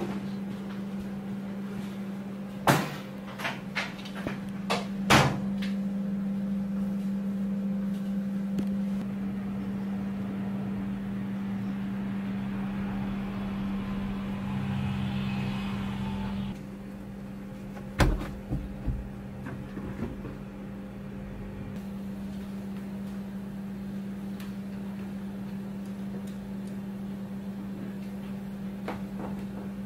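Steady low hum of room equipment, with a handful of sharp knocks about three to five seconds in and a few more around eighteen seconds.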